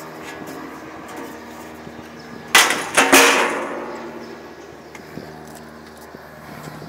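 Metal equipment cover panel being set down: two loud clattering bangs about half a second apart, with a ringing that fades over about a second. A low steady hum runs underneath.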